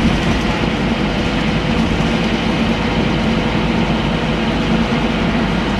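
Scania N230UB bus's diesel engine running steadily, heard from inside the passenger saloon, with road and body noise from the moving bus. A low, even drone with no changes in pitch.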